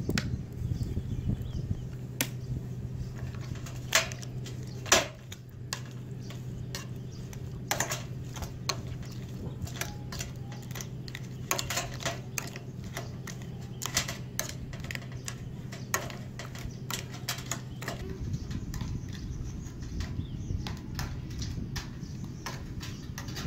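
Metal spoon clinking and scraping against a ceramic bowl as a thick chili sauce is stirred: irregular sharp clicks, the loudest two about four and five seconds in. A low steady hum underneath stops about three-quarters of the way through.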